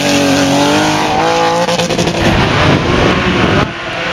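Rally car engine at high revs, pitch climbing, dropping with a gear change about a second in, then climbing again; it turns rougher and noisier as the car comes close, and the sound drops suddenly near the end.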